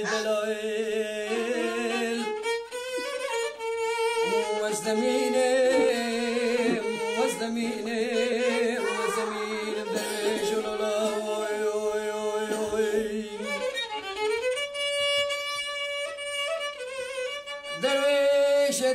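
Violin bowing a Kurdish folk melody in ornamented lines.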